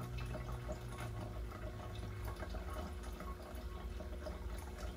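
Faint dripping water in the background, with a low steady hum that stops about two seconds in.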